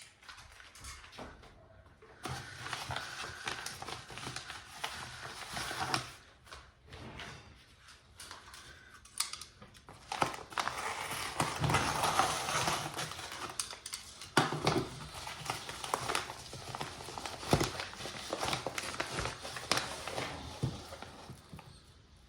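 Hands opening and handling a mailed book package: irregular rustling and crinkling of packaging with scattered clicks and knocks.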